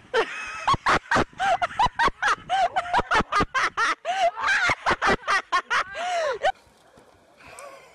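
Someone laughing hard in quick, rapid bursts, which stop about six and a half seconds in.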